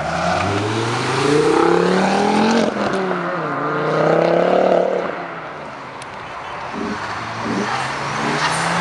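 Mk2 Ford Focus RS's turbocharged five-cylinder engine accelerating hard away. Its pitch climbs, drops at a gearchange about two and a half seconds in, then climbs again before fading. Near the end a second car's engine rises as it approaches.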